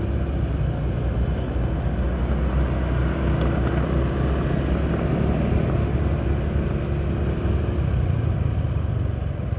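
Motor scooter riding along at low speed: its small engine runs steadily under a rush of wind and road noise on the handlebar-mounted microphone.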